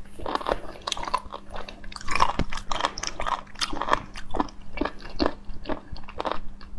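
Crunchy chewing of sliced ready-to-eat sea cucumber: a quick, irregular run of crisp crunches and crackles, several a second, with the mouth closed.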